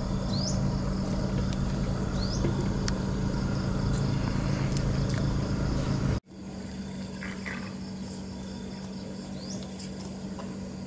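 Outdoor ambience dominated by a steady low mechanical hum, with a few short rising chirps. About six seconds in it cuts off abruptly and resumes at a lower level.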